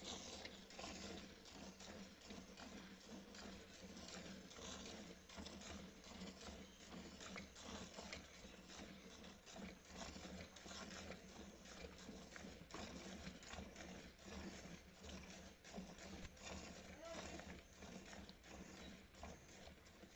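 Cow being milked by hand into an aluminium pail: faint, regular spurts of milk streaming into the frothy milk already in it, a few each second.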